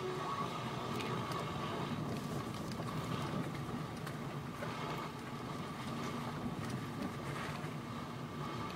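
Steady car cabin noise from a car on the move: a low engine and road rumble with a steady higher hum and a few faint clicks.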